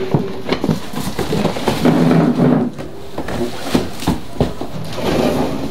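Cardboard box rustling and scraping as a heavy 14-inch cut-off saw is lifted out of it, with many short knocks and bumps of the machine against the box.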